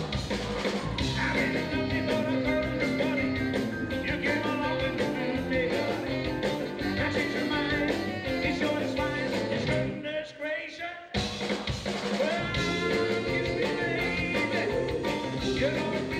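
Live rock and roll band playing with a male lead singer on a handheld microphone. A little over ten seconds in the band thins out for about a second, then comes back in together.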